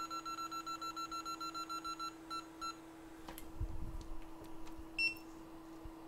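Electronic beeping from workbench equipment: a rapid run of short, identical beeps, about seven a second, that stops about two and a half seconds in, followed near the end by one single higher beep.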